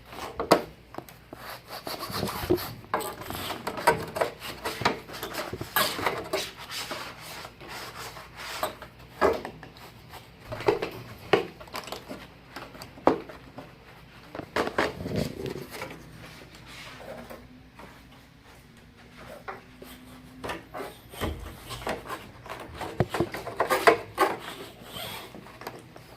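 Irregular rubbing and scraping with many scattered sharp clicks and knocks of hard objects, quieter for a few seconds about two-thirds of the way through.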